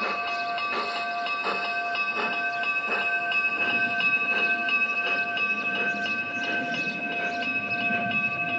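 G-scale model railway cars rolling slowly along garden track, their wheels clicking over the rail joints about every two-thirds of a second, over a steady high whine of several tones.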